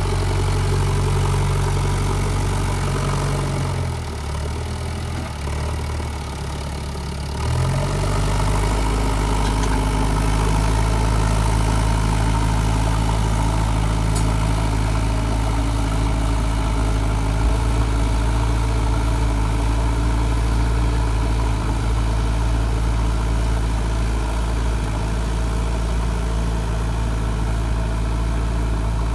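Diesel engine of a JCB 3DX backhoe loader running steadily; about four seconds in its note drops lower and quieter, then picks back up about three seconds later.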